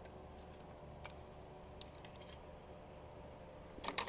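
Faint, scattered small clicks and taps of hands working a fuel injector retaining clip into place under the fuel rail, with a quick cluster of sharper clicks near the end.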